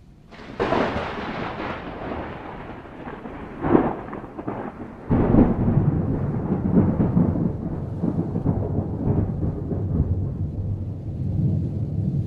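Thunder: a sharp crack about half a second in that trails off into a rumble, a second crack near four seconds, then a loud, deep rolling rumble that starts suddenly at about five seconds and goes on.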